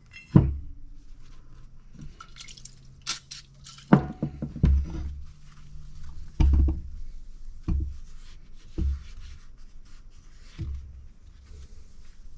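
The aluminium sheaves of a Can-Am Maverick X3 primary clutch being handled and wiped clean on a workbench: a series of short, sharp knocks and thumps as the metal parts are set down and turned, with rag rubbing between them.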